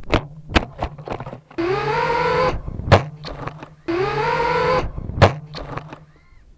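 Electric motors of an X210 FPV racing quadcopter lying crashed in the grass, spinning up and back down in two short bursts of whine that rise and then fall in pitch, with clicks and knocks between them.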